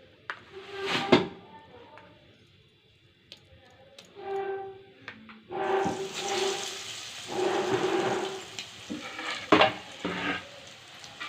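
Batter-coated bread egg puffs going into hot oil and frying, a dense sizzle that starts about halfway through and keeps swelling as pieces are added.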